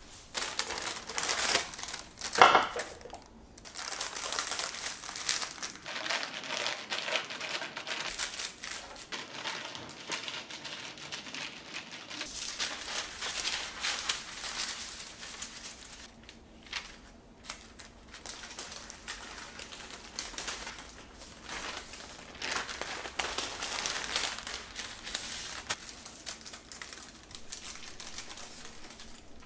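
Baking parchment rustling and crinkling as it is handled and peeled off a freshly baked sponge cake sheet, in irregular spells with short pauses. A single sharp knock about two and a half seconds in is the loudest sound.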